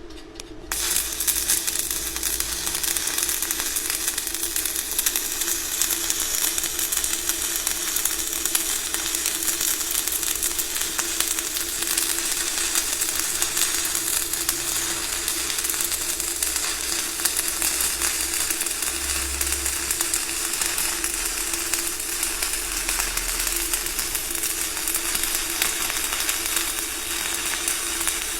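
Stick (MMA) welding arc from an ESAB UONI 13/55 basic-coated electrode, laying a fillet weld on a tee joint. The arc strikes suddenly about a second in, then keeps up a steady, dense crackle and sizzle.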